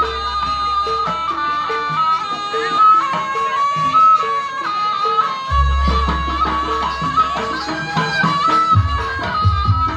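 Jaranan ensemble music playing a sampak piece. A shrill, reedy wind instrument carries a stepping melody over a steady pulse of short metallic notes. A deep gong-like tone sounds and rings from about halfway through, and short low drum strokes come in near the end.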